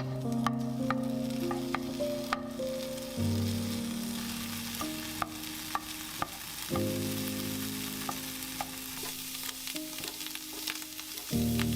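Food sizzling as it fries in a pan, with scattered sharp clicks of a utensil against the pan, over soft background music.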